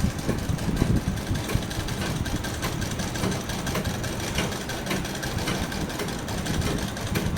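Sewing machine running steadily, its needle mechanism clattering in a fast, even rattle of clicks as the hand wheel is turned.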